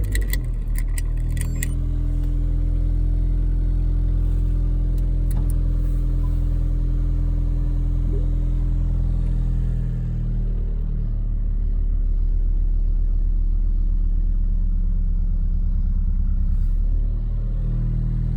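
Third-generation Honda Prelude's four-cylinder engine idling steadily after a clean start. A few light clicks come in the first couple of seconds, and the engine note shifts around the middle and again near the end.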